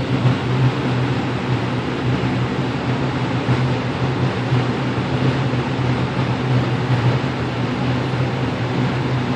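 Steady low mechanical hum with a hiss over it, with no gunshot.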